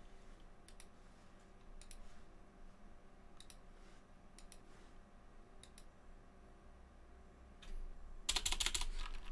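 Computer keyboard typing: a few scattered single keystrokes, then a quick run of keystrokes near the end.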